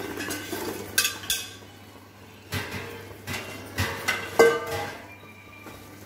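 A metal spoon knocking and scraping against a stainless steel pot while fried gavvalu are turned in jaggery syrup. About half a dozen sharp ringing clinks come through, the loudest a little past four seconds in.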